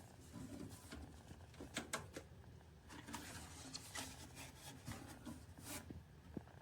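Faint handling noises of a small metal tool box: light clicks and knocks scattered through, with a stretch of rubbing or sliding about three seconds in.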